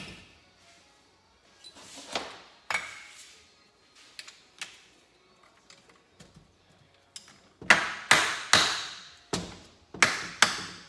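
Sharp metallic taps on the case cover of a Kawasaki Bayou 300 engine, each ringing briefly, to free the stuck shift-assembly cover. A few taps come spaced out, then a quick run of about six louder ones near the end.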